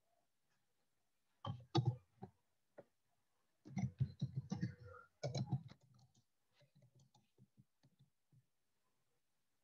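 Computer keyboard keys clicking as someone types: two quick bursts of keystrokes, then lighter, sparser taps that stop shortly before the end.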